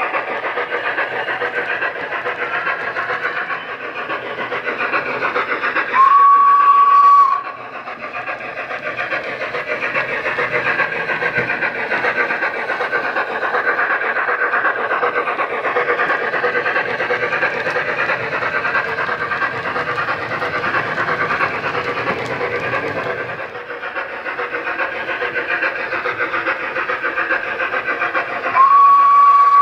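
Model Flying Scotsman's DCC steam sound decoder playing a running steam locomotive through its onboard speakers, with two loud single-tone whistle blasts of just over a second each, about six seconds in and near the end.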